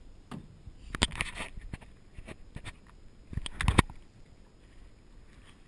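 Irregular knocks and rattles of gear against a small jon boat, with the loudest cluster of thumps about three and a half seconds in.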